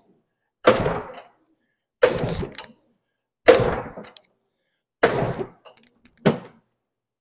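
Five pulls on the recoil starter rope of an Arctic Cat Panther snowmobile, one about every one and a half seconds, each a short rasp that fades quickly as the twin-cylinder engine is cranked over for a compression test. The engine is very tight and hard to pull over.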